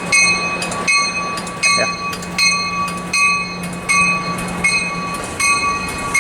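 Departing commuter train, with a warning bell ringing about once a second throughout. A low steady drone runs under it and stops about five seconds in.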